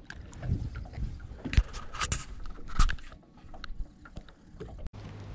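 Close handling noise as a bass is held by the lip and unhooked by hand: scrapes, rustles and a few sharp knocks. Near the end the sound cuts to a steady low hum.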